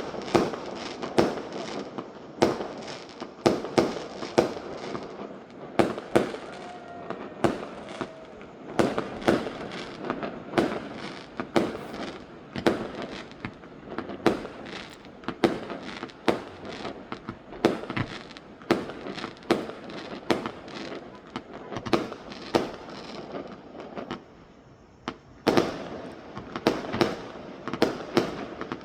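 Fireworks going off in a continuous display: irregular sharp bangs of aerial shells, often several a second, with crackling between them and a short lull near the end.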